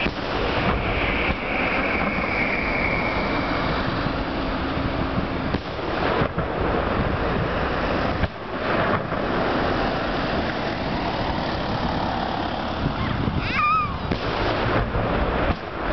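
Fireworks display: aerial shells bursting in quick succession, a near-continuous rumble of booms and crackle. A high whistling tone falls slowly over the first few seconds, and a shorter wavering whistle comes near the end.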